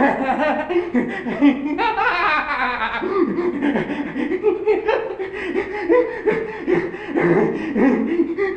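Human laughter, chuckling and snickering, with a louder laugh about two seconds in.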